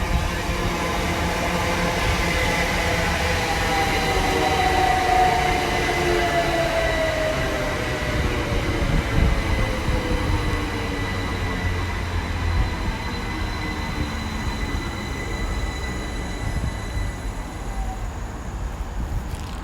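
Two coupled Class 387 electric multiple units pulling out of the station: a steady rumble with a held high tone and lower whining tones sliding slowly down in pitch, getting a little quieter near the end as the train moves away.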